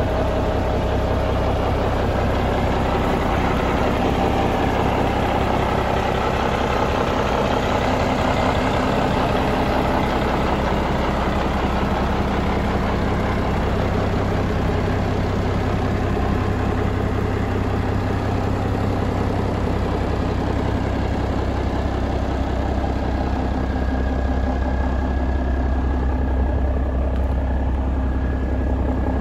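1988 International F-9300 semi tractor's diesel engine idling steadily.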